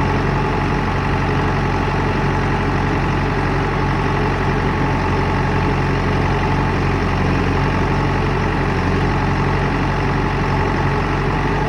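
JCB 3DX backhoe loader's diesel engine running steadily at an even, unchanging speed, with no revving.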